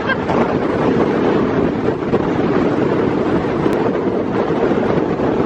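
Strong storm wind blowing across the microphone: a steady, loud rush.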